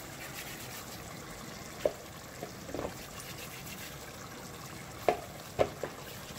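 Small flour dumplings (spinners) dropped one at a time into a pot of simmering liquid: several short plops over a steady bubbling hiss, the loudest about two seconds in and two more close together near the end.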